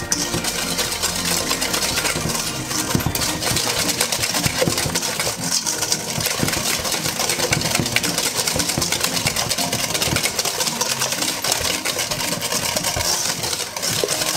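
Wire balloon whisk beating eggs and sugar in a stainless steel mixing bowl: a rapid, steady clatter of wire strokes against the metal bowl.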